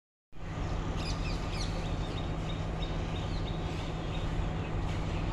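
Birds chirping in short falling calls over a steady low drone from an approaching diesel-hauled train.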